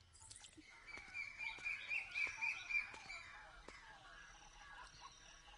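Birds chirping against a faint outdoor background, in a busy run of short repeated calls from about one second to three seconds in, then fainter.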